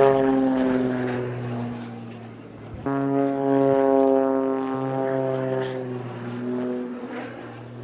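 Propeller-driven aircraft flying past, its engine drone falling in pitch as it goes by. About three seconds in, a louder pass starts abruptly and likewise drops in pitch and fades.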